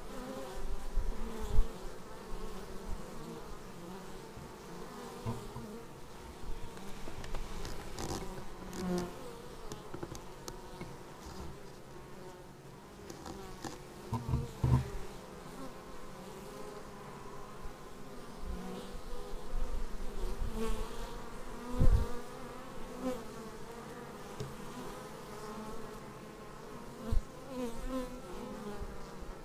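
Honeybees buzzing at the hive entrance: a steady hum from many bees, with individual bees swelling and fading in pitch as they fly past close by. A few short thumps, the loudest about halfway through and again about three-quarters through.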